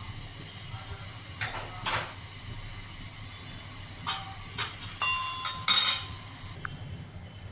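Water with turmeric, salt and garlic simmering down in a pan, a steady hiss, with a few metallic clinks of a utensil against the pan. The hiss cuts off abruptly near the end.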